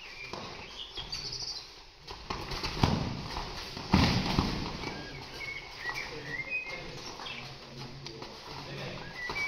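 Players' shoes squeaking and feet thudding on a sports-hall court during a kabaddi raid, with two loud thumps about three and four seconds in and short squeaks later on.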